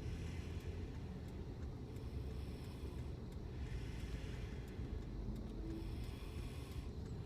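Snoring breaths from a sleeper, swelling and fading about every couple of seconds over the steady low rumble of a moving car.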